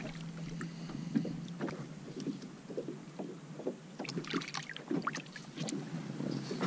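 Handling noise aboard a plastic fishing kayak as a Port Jackson shark is lifted from the water: scattered light knocks, scrapes and rustles, busiest about four to five seconds in.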